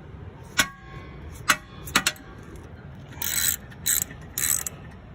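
A dead blow hammer strikes a 3/8-inch ratchet handle four times, each hit sharp with a brief metallic ring, the last two close together, to break loose a 17 mm bolt. Then come three short bursts of ratchet clicking as the freed bolt is turned.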